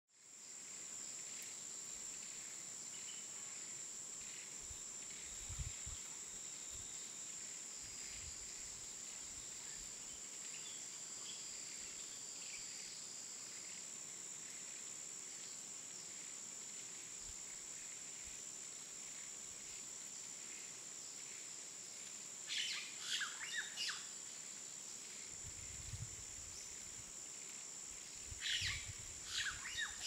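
Pond-side outdoor ambience: a steady high-pitched insect drone under scattered bird chirps, with louder clusters of bird calls about three-quarters of the way through and again near the end. A few low thumps are also heard.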